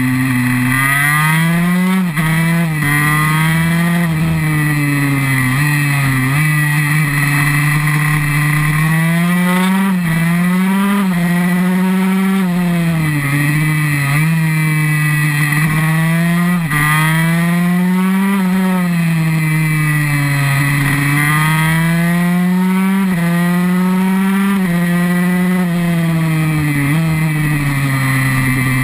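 KTM SX 144 supermoto's two-stroke single-cylinder engine heard from on the bike, revving up and dropping back every few seconds as it is ridden hard through a series of corners.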